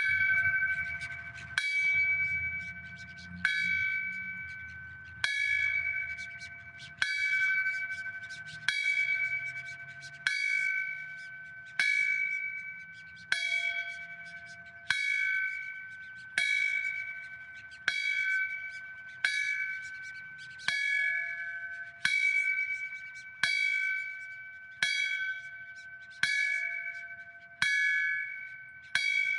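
A fireman's memorial bell struck slowly and evenly, about once every one and a half seconds. Each stroke rings a clear tone that is still sounding when the next one lands. The strikes are a tolling for the dead: one for each life lost.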